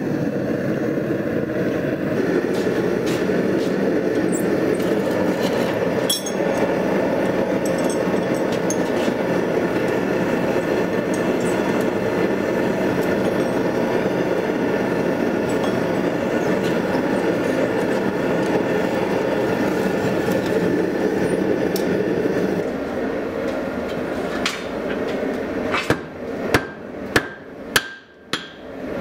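Gas forge burner running steadily with a loud, even rushing noise. Near the end, a run of ringing hammer blows on hot steel on an anvil, about two a second.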